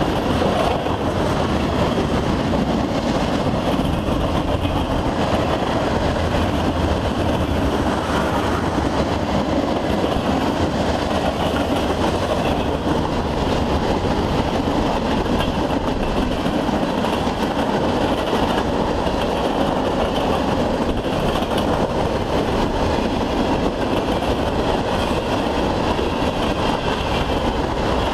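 Freight train's tank cars and covered hopper cars rolling past: a steady, unbroken noise of steel wheels on rail, with the cars rattling.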